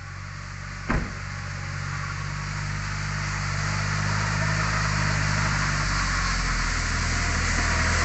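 John Deere tractor's diesel engine running steadily, growing louder as the tractor drives closer. A single sharp knock sounds about a second in.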